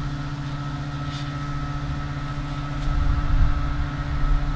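A steady mechanical hum over a low, uneven rumble, with a few faint short ticks.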